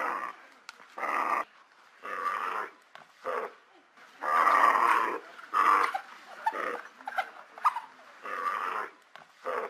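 African wild dogs growling in short repeated bursts, about one a second.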